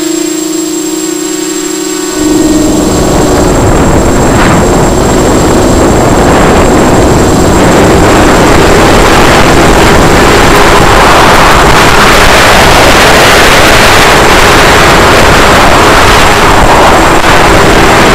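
Onboard sound of a small racing quadcopter's four brushless motors (Emax 2204 2300kv) spinning unbalanced 5045 bullnose propellers, humming steadily. About two seconds in, a loud rushing noise rises and swamps the hum, which stays faintly audible beneath it.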